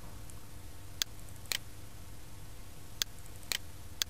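Computer mouse clicking: five sharp clicks, mostly about half a second apart with a pause in the middle, over a low steady hum.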